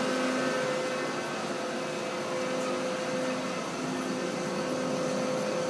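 Wasino TH-102 CNC lathe running: a steady machine hum with a steady mid-pitched tone and a lower tone that comes and goes.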